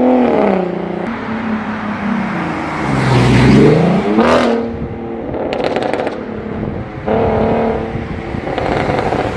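Porsche Cayenne 3.6-litre naturally aspirated V6 with an upgraded exhaust, revved while standing, the pitch falling back then climbing sharply and dropping again. A quick cluster of sharp exhaust crackles comes about six seconds in, followed by another held rev.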